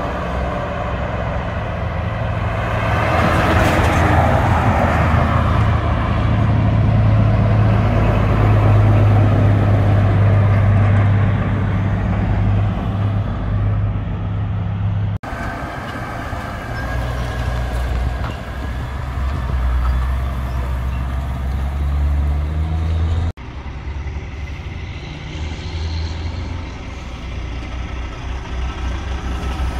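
Heavy diesel truck engines running in short clips joined by two abrupt cuts. First a B-double is heard driving past and away; near the end a road-train prime mover pulls out slowly.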